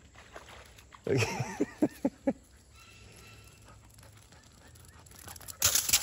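A quick run of short animal calls about a second in, each rising and falling in pitch, then a brief loud burst of noise near the end.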